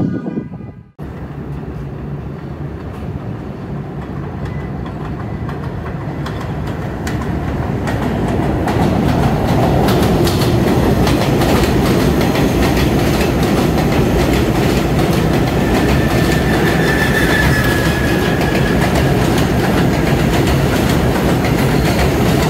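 R68 subway train running on the tracks, wheels clattering over rail joints. It grows louder over the first eight seconds or so, then holds steady, with a brief faint squeal about three-quarters of the way through. A pitched sound cuts off abruptly about a second in.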